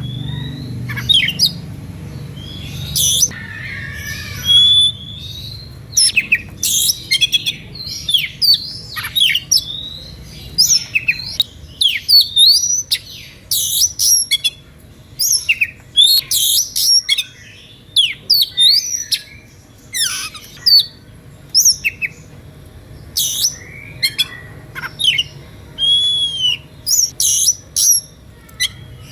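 Oriental magpie-robin singing a loud, fast, varied song of sharp chirps, slurred whistles and arching whistled notes, with brief pauses between phrases. It is singing in a heated, aggressive mood, the kind of song that provokes other magpie-robins that hear it to sing back.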